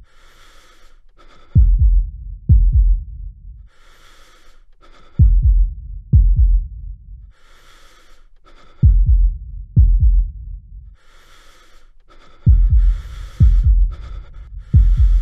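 Heartbeat and heavy-breathing suspense sound effect: deep heartbeats in pairs alternating with breathy inhales every few seconds, the heartbeats coming faster near the end.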